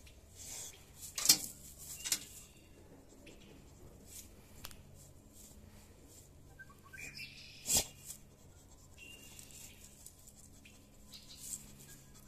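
Boxer dog sniffing with its nose in dry leaves and wood chips, in short breathy bursts, with two louder, sharper bursts about a second in and near eight seconds in.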